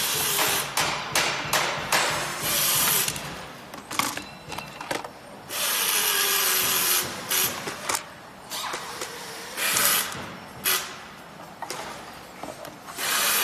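Repeated bursts of rubbing and scraping as an electric scooter's deck battery pack is handled and lifted out of its compartment, with a cordless drill running briefly at the start.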